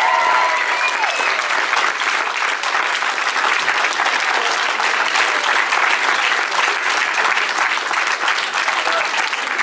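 A large audience applauding steadily, with a voice or two calling out in the first second and again near the end.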